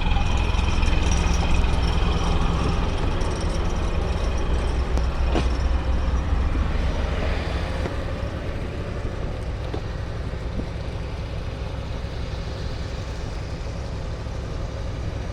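Motor engine running steadily with a low drone under a wash of noise, easing slightly in level toward the end.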